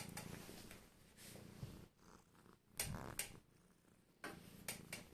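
Domestic cat purring steadily close up while being stroked under the chin, with a few short brushing scrapes of fur against the microphone, the loudest about three seconds in.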